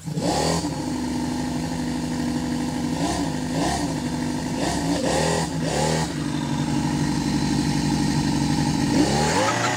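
Engine of a giant home-built remote-control car idling steadily, blipped several times: quick revs about three seconds in, a cluster in the middle, and a longer rev near the end. The title calls it a V10.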